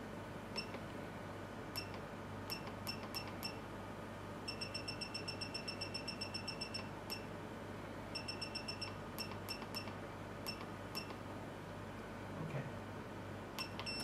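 Key beeps from a Kernel ultraviolet therapy machine's control panel as its treatment timer is set. Short high single beeps come first, then a fast even run of beeps for about two seconds from about four and a half seconds in, as if a key is held down, then more single beeps. A steady low hum runs underneath.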